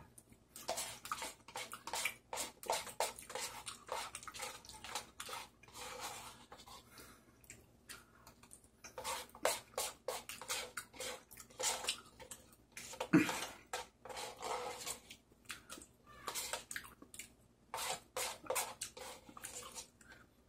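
Close-up eating sounds: wet chewing and smacking of sauce-coated rice cakes and rice, with a spoon scraping and tapping inside a paper cup, in many short, sharp clicks. One brief, louder falling sound about two-thirds of the way in.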